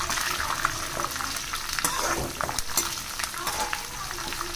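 Tadka of peanuts, dal, curry leaves and chillies sizzling in hot oil in a metal kadai, with a metal spatula stirring and scraping the pan. Scattered pops and scrapes ride over a steady sizzle.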